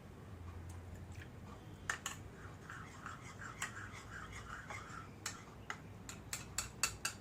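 Light, irregular clicks and taps of kitchen utensils. They start about two seconds in and come more often near the end.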